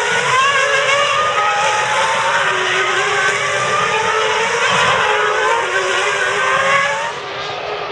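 Several 2001 Formula One cars' 3.0-litre V10 engines at high revs, their overlapping notes rising and falling as the cars run together. The sound drops a little about seven seconds in.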